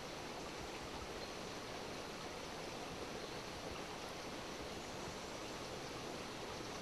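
Steady rushing of a small stream.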